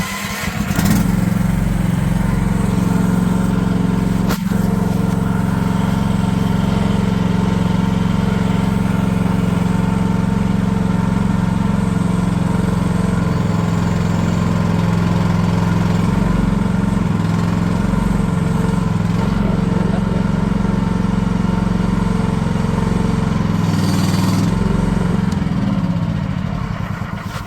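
Mini excavator's small engine running at a steady speed. A sharp click comes about four seconds in, and the engine sound tapers away near the end.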